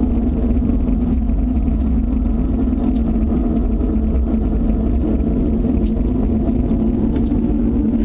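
A loud, steady, unexplained rumbling drone with a constant low hum running through it and no breaks. The person hearing it fears it may be a tornado.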